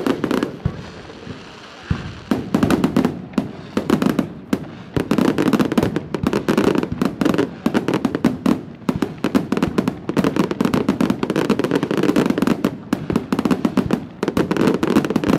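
Fireworks display going off: a rapid, nearly continuous run of bangs and crackles, densest from about two seconds in.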